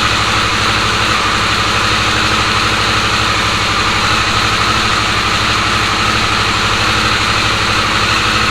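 Harley-Davidson Sportster S's Revolution Max 1250T V-twin idling steadily.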